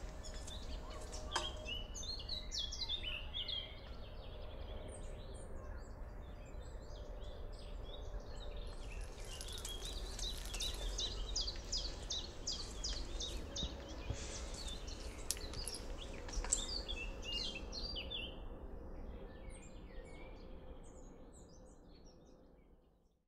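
Several birds chirping and singing over a low, steady outdoor rumble with a faint steady hum, all fading out near the end.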